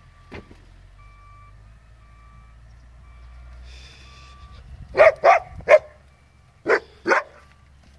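Husky barking: three quick barks about five seconds in, then two more near the end.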